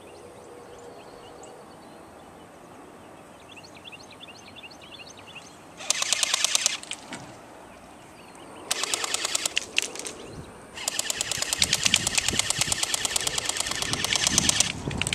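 Airsoft electric guns firing full-auto, each burst a rapid string of sharp clicks: a short burst about six seconds in, another around nine seconds, then a long burst of about four seconds. Birds chirp faintly before the shooting starts.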